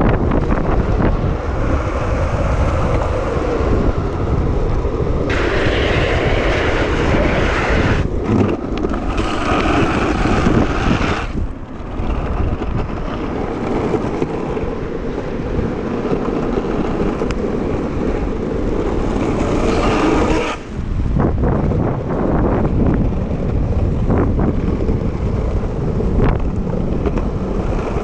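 Wind rushing over the microphone and longboard wheels rolling on asphalt at speed on a downhill run: a loud, steady rush with brief dips twice.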